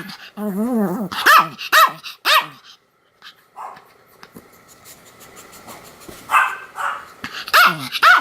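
Pomeranian barking in short, sharp yaps that fall in pitch: three in quick succession about a second in, and more near the end. A wavering growl sits between the first barks.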